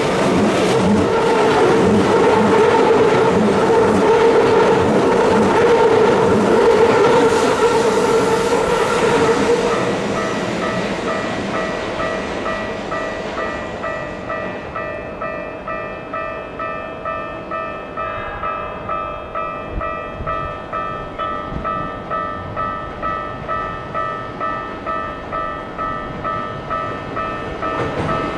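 Keikyu 1500 series electric train running past a level crossing, with wheel and running noise that falls away about ten seconds in. A level crossing warning bell rings through it, pulsing about twice a second, and is the main sound once the train has passed.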